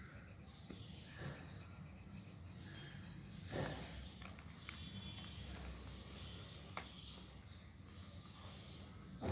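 Pencil scratching on sketchbook paper in quick shading strokes, with a thump about three and a half seconds in.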